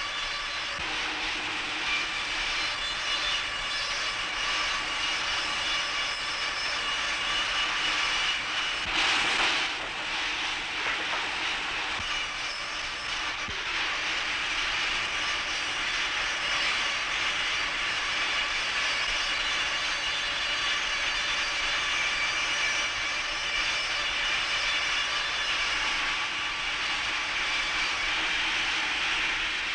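Sawmill circular saw running with a steady whine as logs are fed through it and cut into railway sleepers. It grows louder for a moment about nine seconds in.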